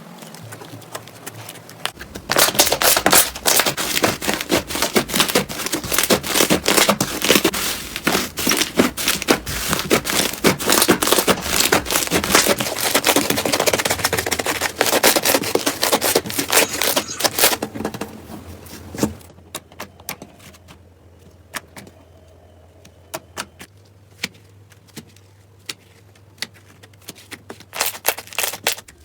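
Slime being played with by hand, giving a dense run of crackling clicks and pops that thins after about seventeen seconds to scattered single clicks.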